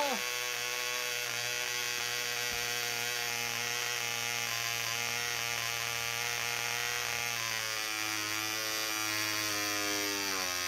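VA Banks Mini Mills 0.25 cc model diesel engine running at high speed with a steady whine. Its pitch drops and wavers from about three-quarters of the way through as the controls are adjusted by hand, and it cuts out suddenly at the end. This tiny diesel is sensitive to adjust and over-compresses easily.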